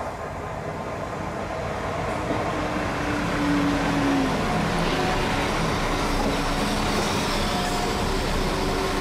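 Two coupled West Midlands Railway Class 172 Turbostar diesel multiple units passing along the platform. Their underfloor diesel engines and the wheels on the rails grow louder over the first few seconds as the train draws alongside, then run on steadily as the carriages go by.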